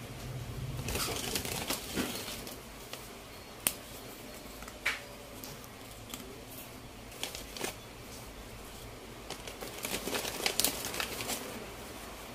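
Graham crackers being laid by hand into a plastic tub: scattered sharp clicks and taps of crackers on the plastic, with two spells of rustling and crinkling, one near the start and one near the end.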